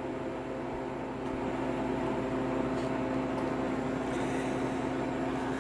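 Harvest Right home freeze dryer running in its freezing stage: a steady mechanical hum from its refrigeration unit, with several fixed low tones, growing slightly louder about a second and a half in.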